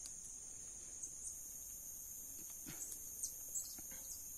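Steady high-pitched insect chorus of crickets or cicadas, with a second, higher buzz joining about a second in. A few faint clicks and short chirps come over it in the second half.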